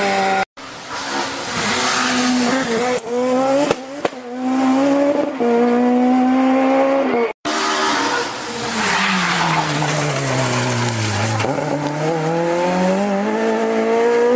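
Rally car engine driven hard: its pitch climbs and steps down through the gears, then falls steadily for a few seconds and climbs again as it accelerates away. The sound drops out for an instant twice, at cuts between shots.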